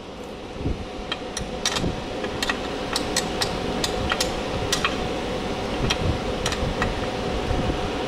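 Steel combination wrenches clinking against the chain adjuster's lock nut and adjuster bolt on a Suzuki GSX-R swingarm as they are fitted and the lock nut is loosened for a chain adjustment. A string of sharp, irregular metal clicks sits over a steady background hum.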